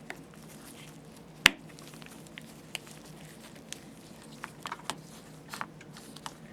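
Plastic universal power adapter and its removable plug being handled and pushed together: scattered light taps and clicks, with one sharp click about a second and a half in as the plug snaps onto the contacts.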